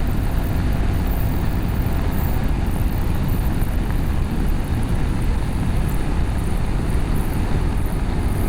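BMW F850GS motorcycle cruising at a steady speed, its parallel-twin engine and Akrapovic slip-on exhaust running under heavy wind noise on the microphone. The sound stays steady, with no revving or gear changes.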